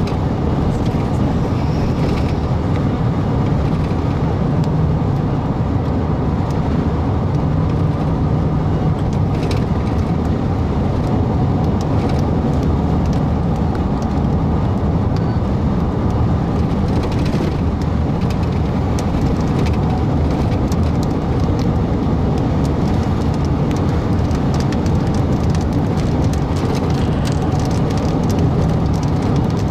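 Steady road and engine rumble of a car driving at speed, heard from inside the cabin, with faint scattered ticks over it.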